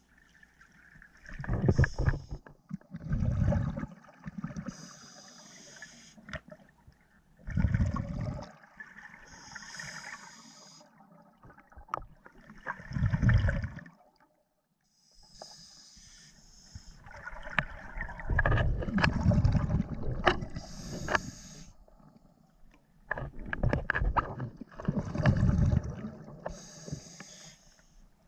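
Scuba diver breathing through a regulator, heard underwater: a hissing inhale followed by a loud rumbling burst of exhaled bubbles, repeating about every five seconds.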